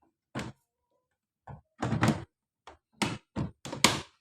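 A series of sharp knocks and thuds, about eight in all, coming faster and louder near the end: the washing machine's plastic casing and cover being pushed and tapped shut after a motor replacement.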